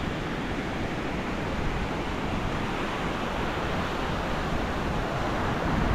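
Steady wash of sea waves breaking on a beach, with wind buffeting the microphone.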